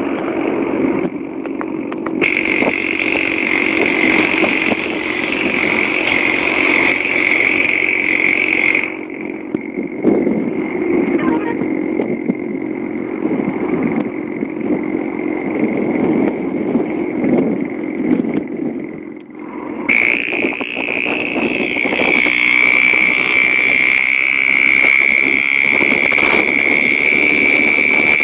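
Engine and road noise of a moving vehicle, heard from on board as it drives along a road. It runs steadily, dropping away briefly once near the end before picking up again.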